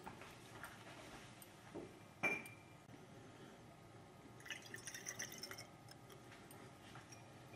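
A single sharp glass clink with a short ring about two seconds in. Then water is poured through a glass funnel into a glass graduated cylinder for about a second, splashing and trickling.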